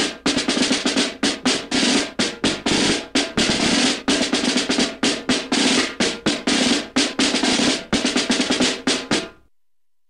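Snare drum roll, fast strikes running together, dying away about nine seconds in.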